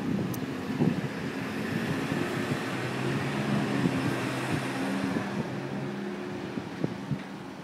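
Street traffic: a motor vehicle's engine running with a steady low hum over a noise of passing traffic, with some wind on the microphone.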